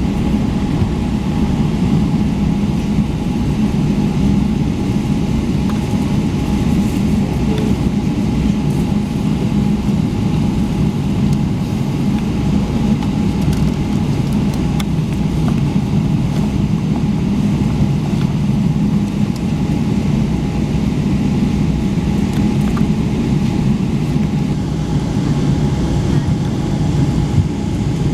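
Steady cabin noise inside a Boeing 777-300ER on the ground: a low rumble from its GE90 engines at low thrust, with a faint steady whine.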